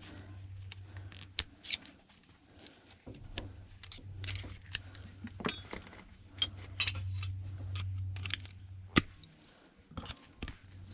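Irregular small clicks, snips and scrapes of hand tools working on the plastic and metal parts of an electric toothbrush's motor as it is taken apart, over a low steady hum.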